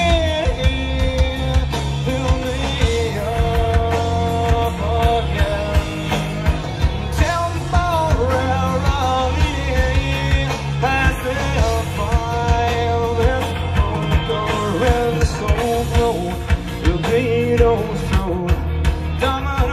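Rock song playing: a singing voice over a band with a steady beat.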